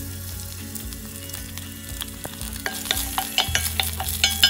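Green beans and garlic sizzling in oil in a stainless steel frying pan while being stirred. From a little before the three-second mark, a quick run of clicks and scrapes from the utensil on the pan grows louder.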